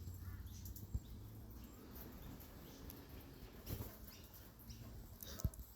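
Faint, scattered bird chirps with a few soft knocks, about a second in, near four seconds and again near the end.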